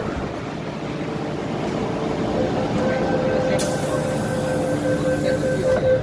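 MTR M-Train electric multiple unit running into a station platform and slowing to a stop: a steady rumble with a level whine. A high hiss sets in about halfway through and stops just before the end.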